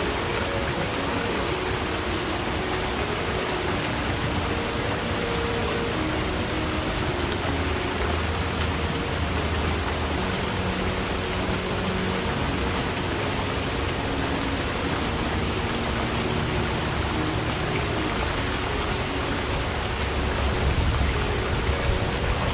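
Forest stream flowing: a steady rush of running water, a little louder near the end.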